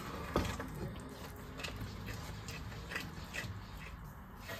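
A wooden spoon stirring a thick, oily mixture of ground prawn and chili powder in a saucepan, with irregular scrapes and light knocks against the pot. One sharper knock comes about half a second in.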